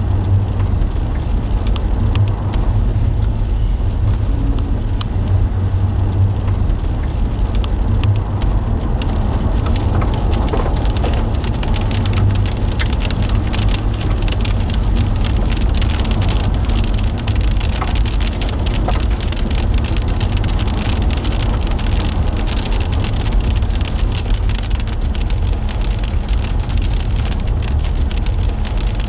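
Rain hitting the windshield and roof of a moving car, heard from inside the cabin as a steady spray of fine ticks over a constant low road rumble.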